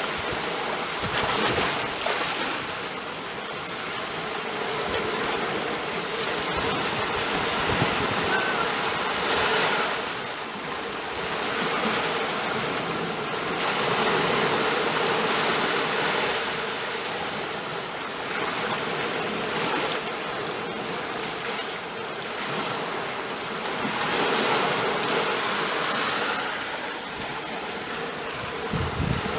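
Sea waves washing in and drawing back, a steady rush of water that swells and eases every few seconds.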